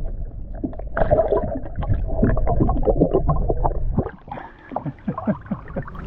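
Muffled underwater sound from a camera held just below the surface: water sloshing and bubbling, with many small clicks and knocks that grow louder and busier from about a second in and ease off near the end.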